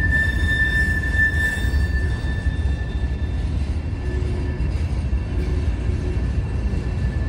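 Slow freight train's covered hopper cars rolling past, with a steady low rumble of steel wheels on rail. A single high steady wheel squeal is strong at first and fades away about two seconds in.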